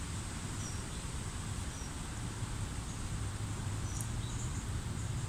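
Steady outdoor background noise with a low rumble, and a few brief, faint high chirps from small birds.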